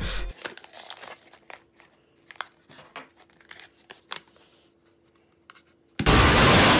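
Packaging crinkling and tearing as a small item is worked open by hand, a run of short irregular crackles. About six seconds in, a sudden loud blast of music and noise cuts in.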